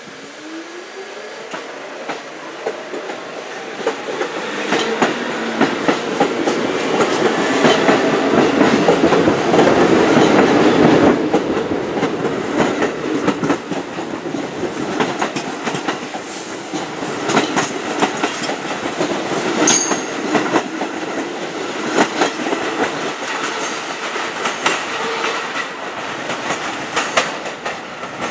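R46 New York City subway cars pulling out and accelerating past, the traction motors whining up in pitch at the start, with wheels clacking over rail joints. The noise builds to its loudest about ten seconds in as the cars go by, then eases off, with scattered sharp clicks continuing.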